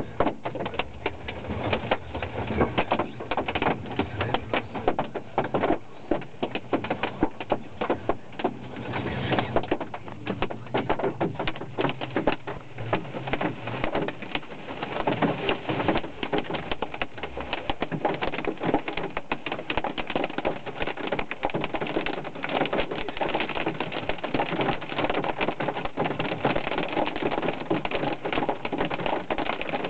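Hailstones hitting the roof and windscreen of a moving car, heard inside the cabin: a dense, rapid clatter of hard ticks that becomes more even and continuous in the second half.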